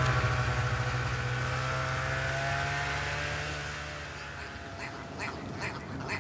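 Snowmobile engine running with a steady note, fading away over the first four seconds. From about five seconds in, a ptarmigan's short repeated calls fade in.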